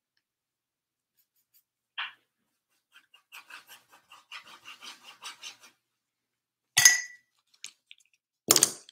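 Paintbrush scrubbing paint onto a stretched canvas in a quick run of short strokes, about five a second, followed by a single sharp knock.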